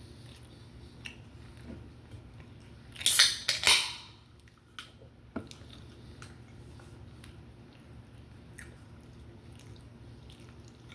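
Cutlery clinking and scraping against a plate, with a loud clatter of two quick bursts about three seconds in, then scattered small clicks.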